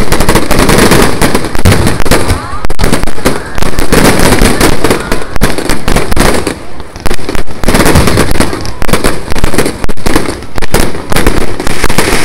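Fireworks display going off: a fast, almost unbroken run of overlapping bangs, very loud, with brief lulls about a third and halfway through.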